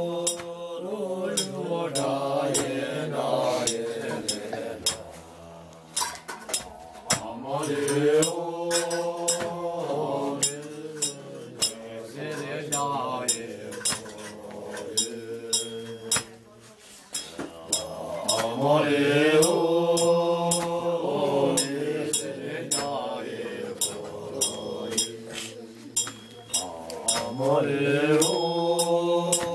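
Several men chanting Buddhist prayers in unison, long level phrases that swell and fade every few seconds, with sharp metallic clinks about twice a second.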